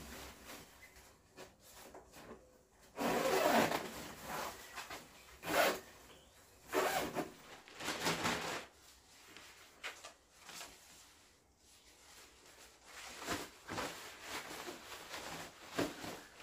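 Mesh fabric of a pop-up pet pen rustling and rubbing in irregular bursts as it is handled.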